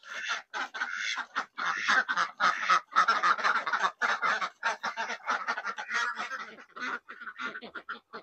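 A flock of domestic ducks quacking in a dense, continuous chatter as they come out of their coop, thinning out near the end.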